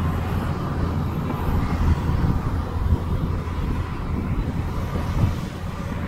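Heavy diesel earthmoving machinery running with a steady low rumble, with a few brief knocks about two, three and five seconds in.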